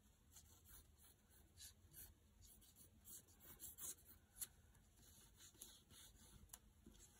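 Faint pencil scratching on paper as a paper cut-out letter is traced around, in short irregular strokes.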